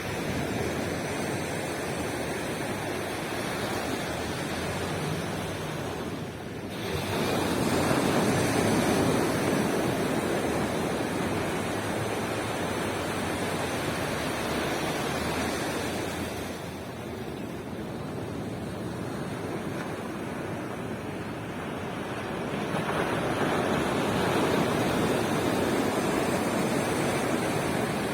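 Ocean surf washing onto a beach: a continuous rushing wash that swells louder about seven seconds in and again a little past twenty seconds as waves break.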